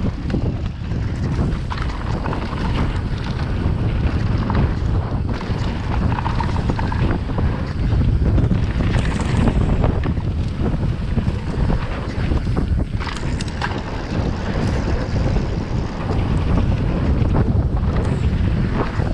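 Heavy wind buffeting the microphone as a downhill mountain bike descends a dirt track, with a steady low rumble and scattered knocks and rattles from the bike.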